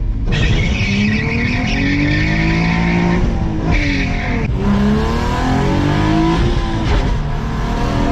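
Infiniti G35's V6 engine revving hard under acceleration, its pitch climbing, dropping at shifts and climbing again, with tyres squealing over the first three seconds and again briefly about four seconds in.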